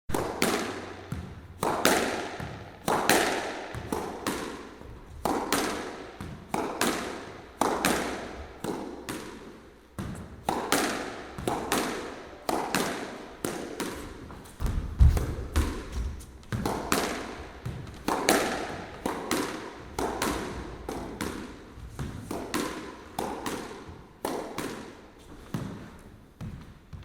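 Squash rally: a rubber ball struck by rackets and smacking off the court walls, a quick irregular run of sharp hits with echo in the enclosed court. Around the middle there is a heavier low thud.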